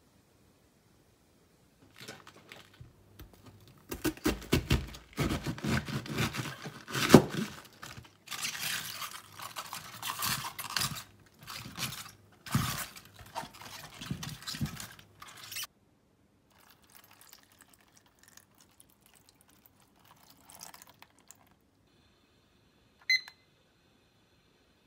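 Raw cabbage leaves crinkling and crunching as hands toss them in a stainless steel bowl, a dense run of crackles lasting about fourteen seconds. Near the end, a digital kitchen timer gives one short beep as its button is pressed.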